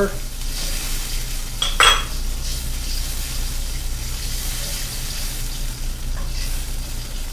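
Soy and hoisin sauce sizzling in a hot wok, a steady hiss, with a single ringing metal clink about two seconds in.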